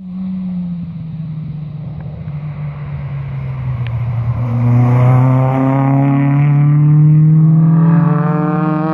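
Rally car engine approaching under sustained acceleration, getting louder, its pitch climbing slowly as it comes on.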